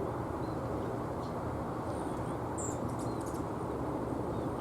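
Spice finches chirping: a few short high calls, then a cluster of quick chirps about two and a half to three and a half seconds in, over a steady low background rumble.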